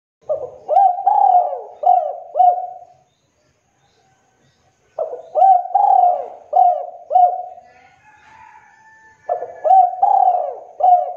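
Spotted dove cooing: three repeated phrases of about five soft, rolling notes each, roughly four seconds apart.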